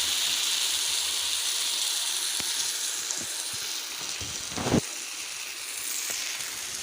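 Butter-and-masala-marinated whole fish sizzling in a little oil on a flat dosa griddle, just laid in. The hiss eases off gradually, with a few scattered pops and one louder one about four and a half seconds in.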